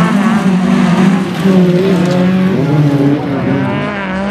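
Several stock car engines revving hard at close range, overlapping, their pitch rising and falling as the cars race past.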